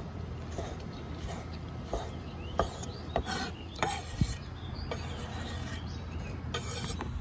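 A kitchen knife dicing a tomato on a cutting board: irregular short taps of the blade hitting the board, about one every half second to second, with a few brief scraping sounds in between.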